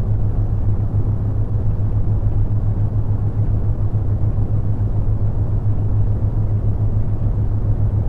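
Synthesised brown noise, a deep steady rumble, with a low droning theta-wave tone that pulses quickly and evenly underneath.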